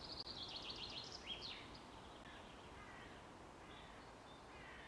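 Park ambience with small birds chirping: a quick run of high chirps in the first second and a half, then a few scattered fainter ones over a soft background hush.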